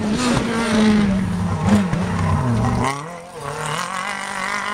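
Rally car going past at speed with its engine at high revs; the engine note falls as it goes by, and about three seconds in the sound suddenly drops away to a quieter, wavering engine note as the car carries on down the stage.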